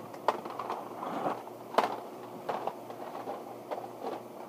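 Plastic toy dart blasters being handled and swapped: a few sharp, spaced clacks and knocks of hard plastic, the loudest two near the start and a little before the middle.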